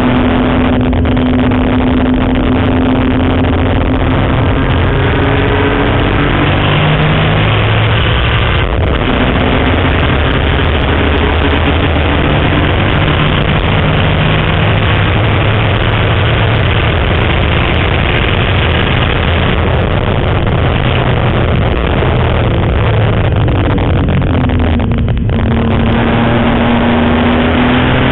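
BMW M3 race car's engine heard from inside the cabin, running hard on a track lap. Its note climbs steadily and breaks off briefly a few times before climbing again, at lifts and gear changes.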